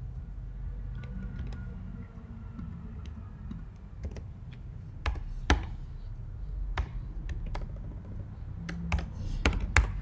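Typing on a computer keyboard: irregular key clicks, with a few louder keystrokes about halfway through and again near the end, over a low steady hum.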